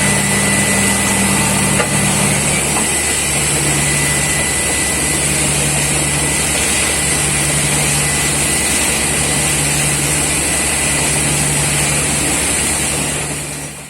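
Borewell drilling rig's engine and machinery running steadily and loudly, then dying away near the end.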